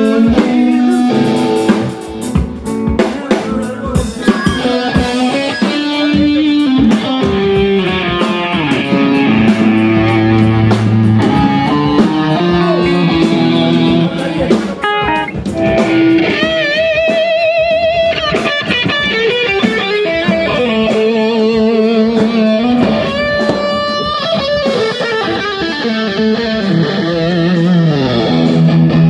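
Live rock band playing: electric guitar with drums, a melody line changing note and wavering in pitch, with frequent drum hits in the first few seconds.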